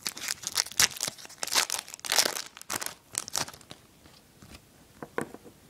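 Foil wrapper of a Topps Chrome baseball card pack being torn open and crinkled by hand: dense, irregular crackling for about three and a half seconds. After that it quietens to a few soft ticks.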